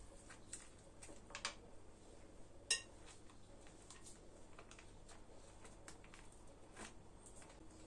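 Light clinks and taps of kitchenware being handled, with a sharper clink about two and a half seconds in.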